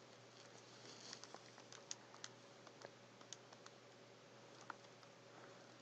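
Faint, irregular clicks and taps, about a dozen spread unevenly, like keys being pressed, over a low steady electrical hum.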